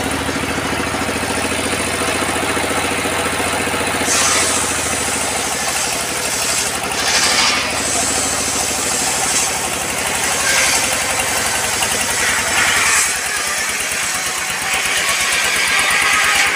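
Old diesel engine driving a circular sawbench, its blade ripping a log lengthwise. The engine runs steadily under it while the higher cutting hiss swells and eases several times as the log is pushed through.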